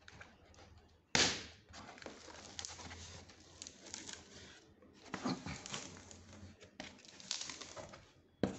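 Cardboard carton flaps being pulled open and folded back by hand: a sudden burst of scraping rustle about a second in, then repeated rubbing and scraping of cardboard and packing, with a brief pause before the last stretches.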